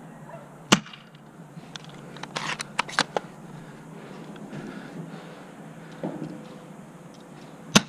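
Airsoft gun fire: sharp single shots. One comes about a second in, a quick run of four or five follows around two and a half to three seconds, and one more comes near the end.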